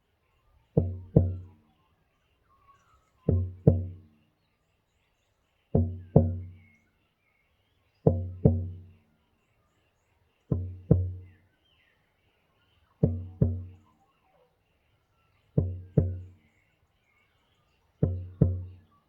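Irish bodhrán frame drum beaten in a slow heartbeat rhythm: a pair of strikes, the second just after the first, about every two and a half seconds, each ringing out with a low boom, eight pairs in all.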